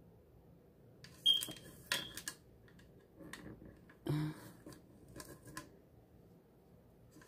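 Scattered light clicks and knocks of kitchen things being handled while carrots are readied for a juicer. The first click, about a second in, has a brief ringing tone, and a louder knock comes about four seconds in.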